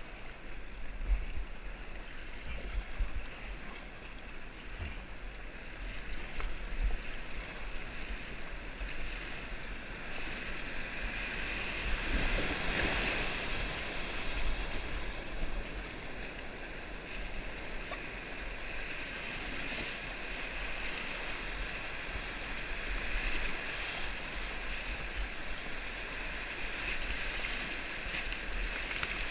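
Whitewater rushing and churning around an inflatable raft as it runs a river rapid, growing louder about a third of the way in, with wind buffeting the microphone.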